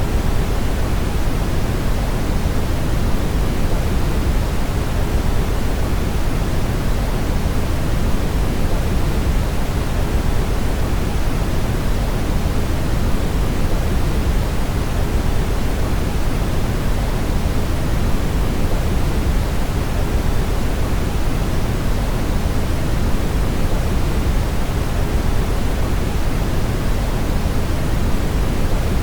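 Brown noise: a steady, deep rushing noise, heaviest in the bass and falling away in the treble, unchanging throughout.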